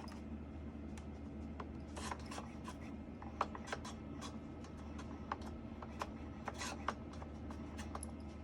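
Mini InnoFader Plus crossfader being slid back and forth, with scattered small clicks and short scratching, rubbing scrapes. The rubbing is a sign of the fader rubbing against its plate.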